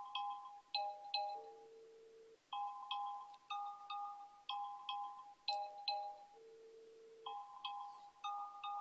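Sony Xperia E5 smartphone ringing for an incoming call. Its ringtone is a melody of quick short notes, each phrase ending on a longer, lower held note, and it repeats about every five seconds.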